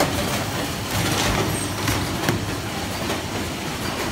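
An automatic box packing and cellophane overwrapping machine line running: a steady mechanical hum overlaid with irregular clicks and clatter from its moving parts.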